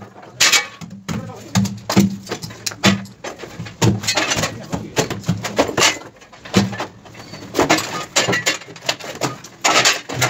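Hammer striking the steel clamps and panels of concrete wall formwork as it is knocked loose for stripping: a run of irregular, sharp metallic knocks.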